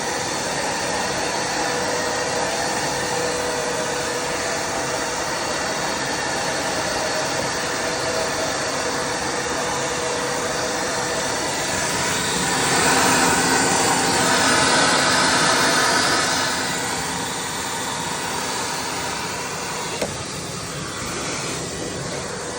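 EGO Power+ cordless wet/dry vac running steadily with a constant whine, sucking on a clogged condensate drain line to pull out the blockage. About twelve seconds in it grows louder for several seconds, then settles back.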